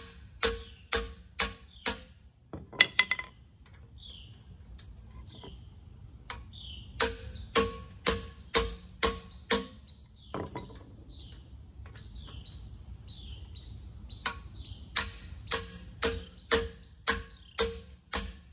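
Short-handled sledgehammer striking the handle of a ratchet on a 3/4 in socket, a ringing metal clank about twice a second in three runs with pauses between them. The hammer blows are breaking loose seized bolts on a 14-bolt full-floating axle hub that an impact wrench could not budge. Insects buzz faintly in the background.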